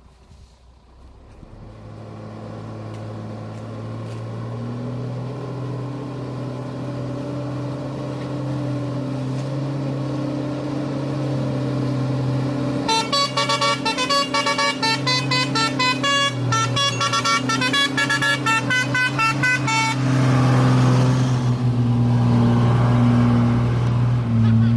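A heavy vehicle's engine drones steadily and grows louder as it approaches. About halfway through, a musical multi-tone horn plays a rapid tune of changing notes for about seven seconds, followed by a brief hiss.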